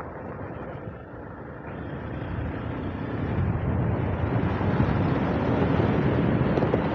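Yamaha motorcycle running at road speed, heard from the rider's seat, with engine and rushing wind and road noise that grow louder from about two seconds in.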